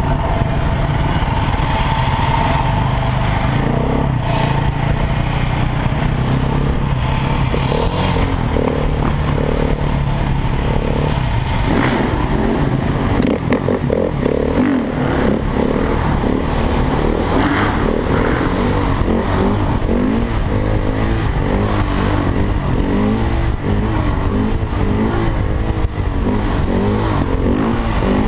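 Supermoto motorcycle engine heard from the rider's helmet camera, running through city streets and revving up and down repeatedly, most of all in the last several seconds.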